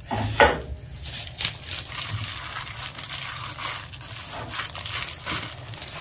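Gloved hands kneading raw ground beef with diced onion and spices: wet squishing mixed with the crinkle of thin plastic gloves, in irregular handfuls.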